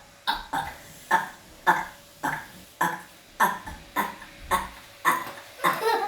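A person burping over and over in short, loud belches, about two a second, each one clipped off quickly.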